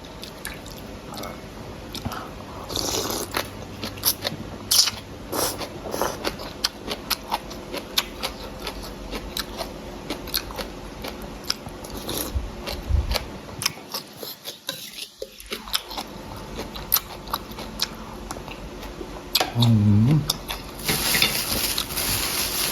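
Close-miked eating sounds: a person chewing and crunching food with many small wet clicks and smacks, and a short hum of approval about twenty seconds in.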